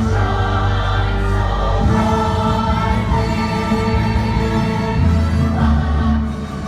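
Loud orchestral music with a choir singing, sustained chords shifting about two seconds in and again near five seconds.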